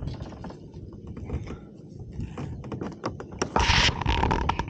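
Light clicking and rattling, then a splash on the water about three and a half seconds in, lasting about a second.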